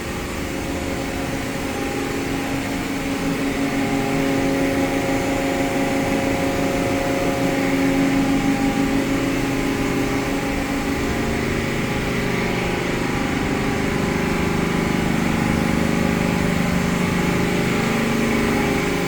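Haas SL30T CNC lathe spindle running at about 2,500 rpm: a steady machine hum with several held tones that builds over the first few seconds, then holds, the main tone shifting lower about two-thirds of the way in.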